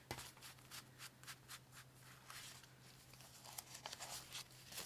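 Paper banknotes being handled and counted by hand: a run of faint, crisp rustles and flicks as the bills are slid and fanned.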